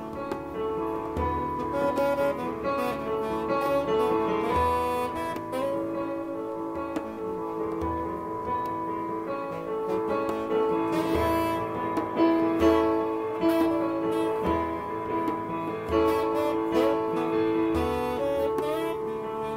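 Instrumental band music: a saxophone plays held melody notes over electronic keyboard chords, with a hand drum thumping every second or two.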